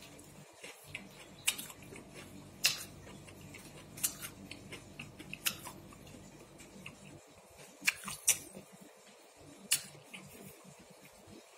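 Eating by hand: about seven sharp clicks and taps spread out with pauses between them, from fingers picking food out of a takeaway box and from chewing, over a faint low hum.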